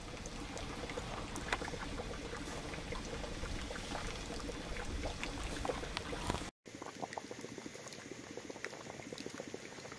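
Maple sap at a rolling boil in a stainless steel evaporator pan: a dense, steady bubbling and popping, quieter after a cut about six and a half seconds in.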